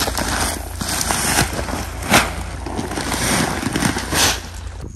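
Chickpea seed pouring from a woven plastic sack onto a heap on a tarpaulin: a steady rushing hiss of the grains, with sharper rustles of the sack, the loudest about two seconds in.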